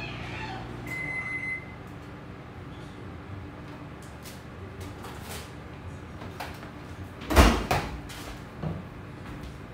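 Kitchen clatter: a short high beep about a second in, then one loud knock about seven seconds in, followed by a couple of lighter knocks.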